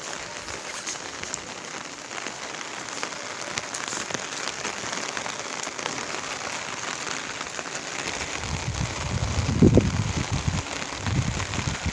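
Heavy rain falling steadily, a dense even hiss. From about eight seconds in, gusts of wind rumble on the microphone.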